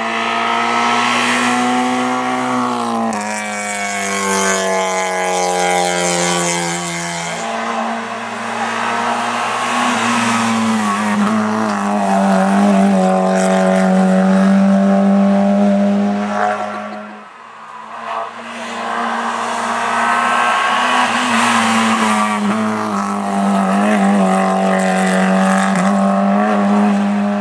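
Small hatchback competition car on a hill climb, driven flat out at close range. The engine revs up and drops in pitch at each upshift, several times over, and the sound fades briefly about two-thirds of the way through before the engine comes back loud.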